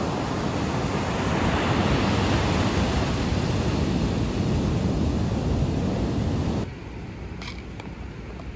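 Sea surf breaking and washing up a sandy beach: a steady, dense rush of waves. Near the end it cuts abruptly to a much quieter outdoor background with a couple of faint clicks.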